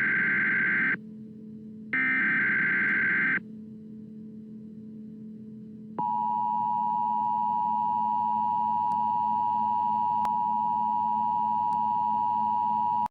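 Emergency Alert System tones: buzzy digital SAME header bursts, one at the start and another about two to three and a half seconds in, over a low steady hum. Then, about six seconds in, the steady two-tone EAS attention signal starts and holds.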